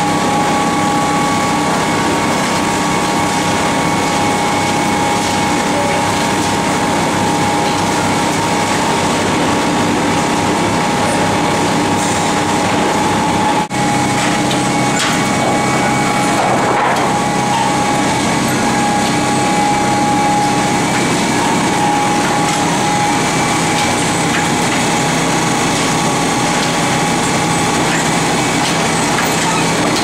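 Sawmill machinery running steadily, a loud mechanical noise with a constant whine in it. It drops out for an instant about fourteen seconds in.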